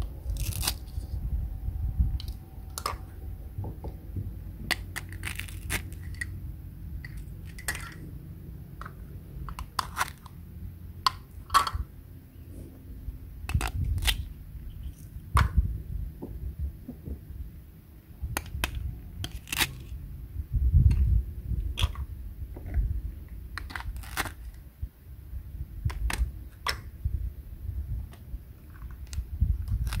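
Plastic toy fruit cut apart with a plastic toy knife: short tearing sounds as the Velcro-joined halves pull apart, among scattered plastic clicks and taps as the pieces are picked up and set down. A low rumble lies underneath throughout.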